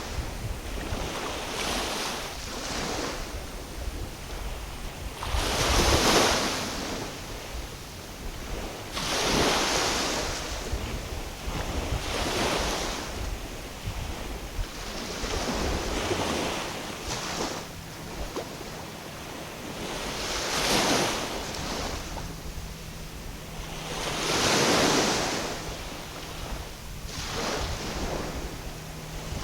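Waves washing in, swelling and fading every few seconds, with wind rumbling on the microphone underneath.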